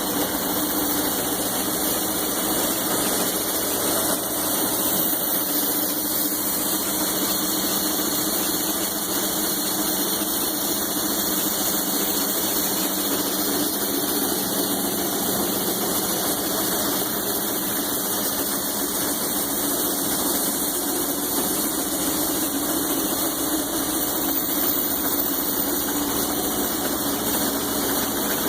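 Hobart 5801 commercial meat band saw running steadily with no load: its electric motor and blade give an even mechanical hum that does not change.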